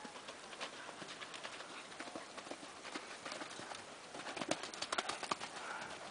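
Hoofbeats of a grey horse cantering on a sand arena, a steady run of soft strikes, with a louder cluster of hoof strikes as it lands from a jump about four and a half seconds in.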